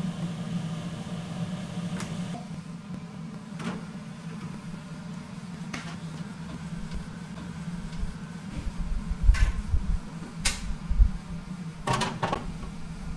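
A steady low machine hum from kitchen equipment, with scattered sharp clicks and knocks of handling and a few dull thumps near the middle.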